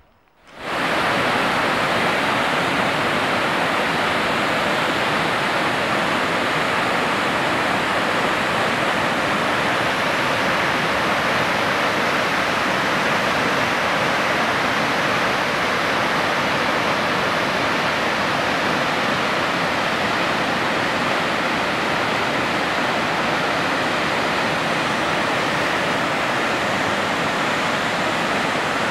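Kamieńczyk Waterfall's heavy cascade down a rock face, a steady rush of falling water that cuts in abruptly about half a second in and holds unchanged.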